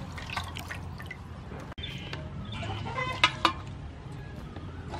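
Water splashing and dripping as broccoli pieces are rinsed by hand in a metal basin.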